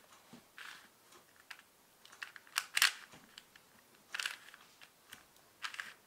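A 4x4 Rubik's cube's plastic layers being twisted by hand: a run of quick clicking and clacking turns with short gaps between them, loudest about halfway through.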